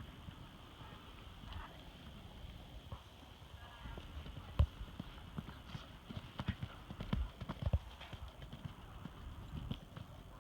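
A horse's hooves striking the ground in an irregular series of footfalls, with a few louder thuds in the second half.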